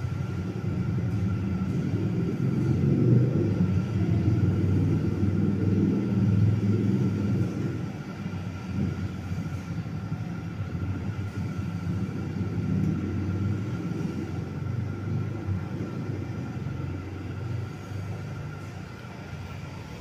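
National F-EY149 56-inch industrial ceiling fan running at speed, its draught buffeting the microphone as an uneven low rumble that eases after about eight seconds, with a faint steady whine above it.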